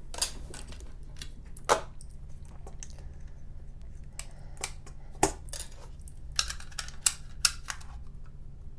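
Handling noise from a computer mouse being fetched and hooked up: scattered clicks and light knocks, the loudest about two and five seconds in, with a quick cluster near the end, over a low steady hum.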